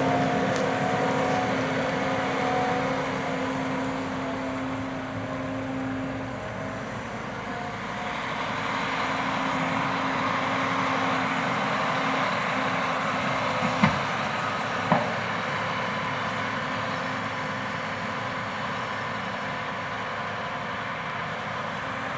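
John Deere 9470R four-wheel-drive tractor's diesel engine running steadily while it pulls a chicken litter spreader across the field. It fades somewhat in the first few seconds and rises again. Two short sharp clicks about a second apart come a little past the middle.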